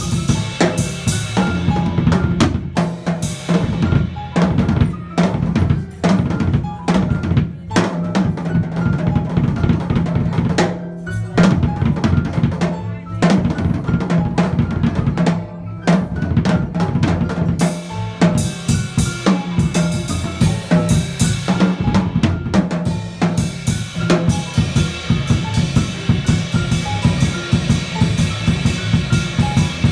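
Jazz drum kit played with sticks: busy snare, bass drum and rimshot strokes over sustained upright bass notes. The cymbal wash thickens in the second half.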